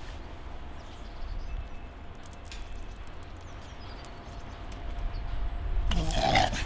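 Low wind rumble on the microphone, with a few faint clicks from the latch of a metal mesh gate being handled, then a short loud sound about six seconds in.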